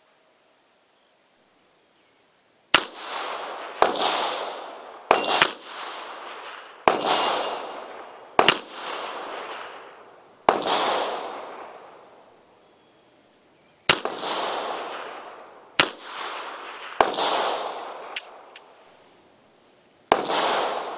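Rast & Gasser M1898 revolver firing 8mm Gasser rounds double action, a string of sharp shots one to three seconds apart, each with a long echoing tail. The shots begin a few seconds in.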